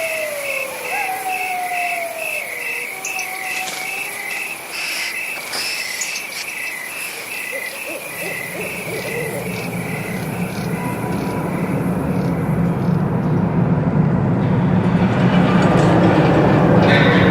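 Horror night ambience built from field recordings: crickets chirping in a steady pulse, with long falling hoot-like calls early on. About halfway through, the crickets give way to a low rumbling drone that grows steadily louder.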